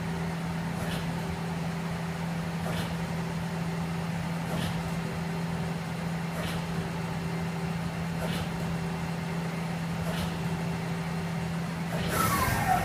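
Okuma Captain L-470 CNC lathe running, a steady machine hum with a faint tick about every two seconds. Near the end a louder rush of noise comes in with a whine falling in pitch.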